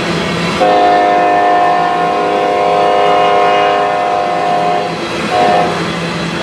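Horn of the Norfolk Southern Wabash heritage locomotive NS 1070 sounding a long blast of about four seconds and then a short one, the long-short pattern of a grade-crossing signal, over the steady rumble of the passing train.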